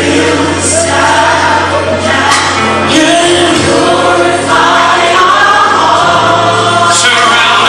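Gospel choir singing over a band, with a sustained bass line underneath.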